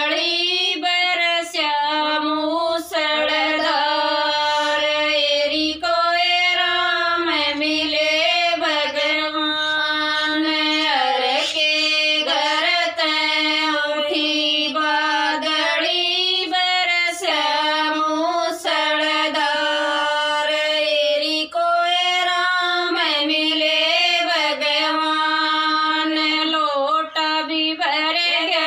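Women singing a Haryanvi folk bhajan together, with a steady note held beneath the melody.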